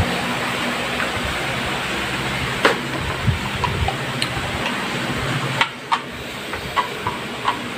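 Blue plastic pipe fittings clicking and clacking as they are handled and pushed together, a handful of light sharp knocks over a steady background hiss with a low hum.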